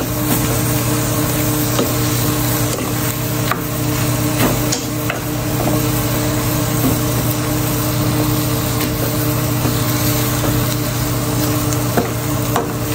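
Minced beef sizzling in a nonstick frying pan as it is stirred, with scattered scrapes and knocks of the spoon against the pan.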